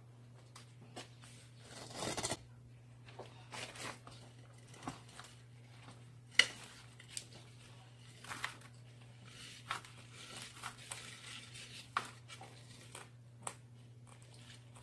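Potting soil being scooped and tipped from a small plastic pot into a large plastic pot by gloved hands: scattered rustling and crunching with sharp clicks from the pots. A steady low hum runs underneath.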